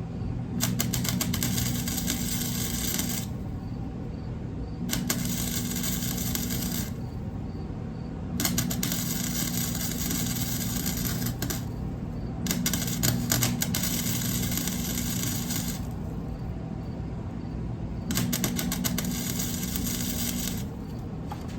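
Arc welder crackling in five bursts of two to three seconds each, with a low hum during each burst, while a steel exhaust flange is welded onto a muffler.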